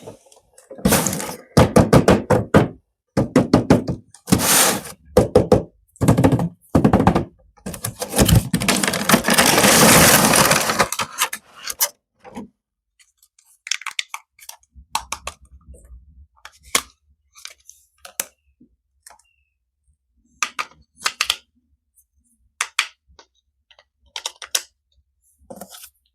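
Toy packaging being handled and opened by hand: loud knocks, crackles and a stretch of rustling during the first half, then scattered lighter clicks and knocks.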